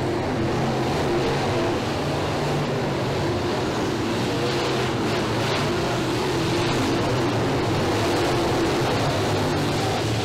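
A pack of dirt-track modified race cars with V8 engines running at speed around the oval, making a steady, loud blend of engine noise.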